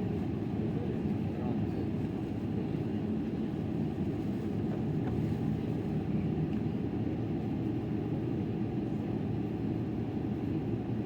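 Steady low rumble inside the passenger cabin of a Boeing 777-300ER, from its GE90-115B turbofan engines and the air rushing past the fuselage.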